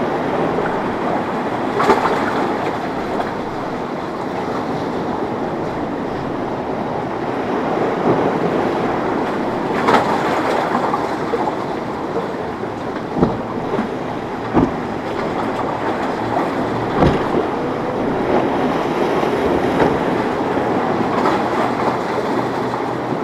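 Outboard engines of high-performance powerboats running at speed through the inlet, mixed with the rush of water and spray off the hulls. Five sharp thumps stand out through the middle.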